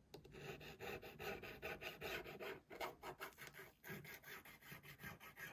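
Faint, quick repeated scraping and rubbing strokes as old adhesive and tape are worked off a smartphone's frame.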